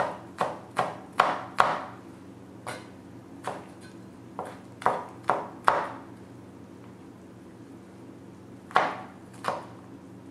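Kitchen knife chopping garlic on a cutting board: a dozen or so sharp chops, about two to three a second, then a pause of about three seconds and two more chops near the end.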